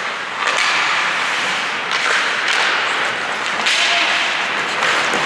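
Ice hockey play on the rink: skate blades scraping the ice in hissing strokes, each starting sharply, about four times.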